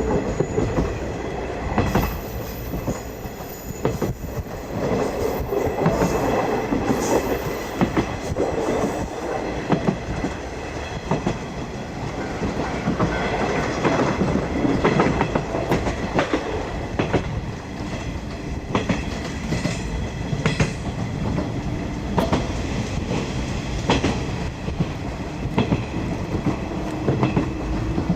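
Running noise of a 50-series passenger coach: a steady rumble of steel wheels on the rails, with the clickety-clack of wheels passing over rail joints.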